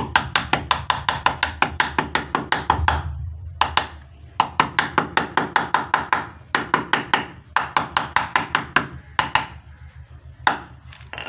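Quick runs of light taps, about six a second with short pauses between runs, as the end cover of a kitchen chimney hood motor is knocked gently into place until it is seated.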